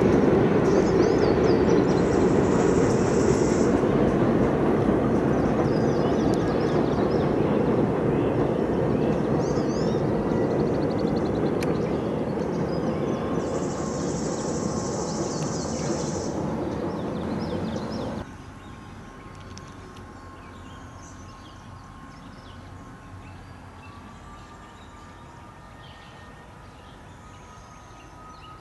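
Short freight train rolling past, a steady rumble of wheels on rail that slowly fades as it moves away. About eighteen seconds in it cuts off abruptly to quiet outdoor ambience with faint bird chirps.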